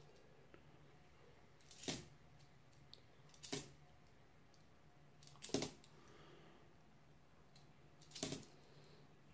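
Nickels clinking as they are set down one at a time onto a pile of coins: about four short, sharp clinks a couple of seconds apart, some doubled.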